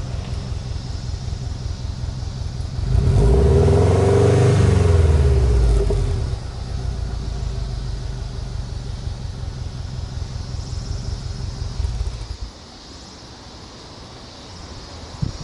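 Subaru Impreza WRX NB's flat-four boxer engine idling at the exhaust, revved once about three seconds in, its pitch rising and falling back over about three seconds before settling to idle again. About twelve seconds in the engine is switched off and the sound stops. A short thump near the end.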